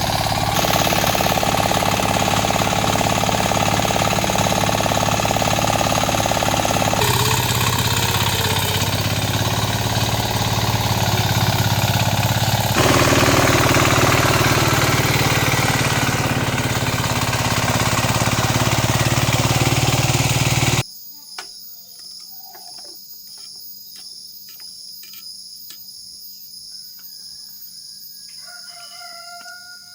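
Mini tractor engine running steadily at a loud, even level, with its sound changing abruptly twice. About two-thirds of the way through it stops suddenly, leaving a much quieter background with scattered clicks and a rooster crowing near the end.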